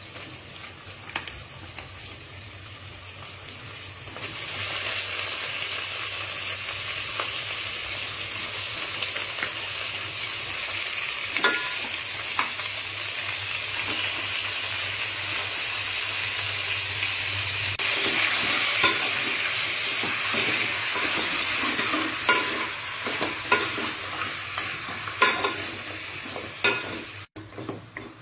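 Raw chicken pieces sizzling in hot oil in an aluminium pot. The steady frying hiss jumps loud about four seconds in as the meat goes in among the fried onions and spices. Near the end it gives way to a few clinks and knocks of a metal spoon stirring against the pot.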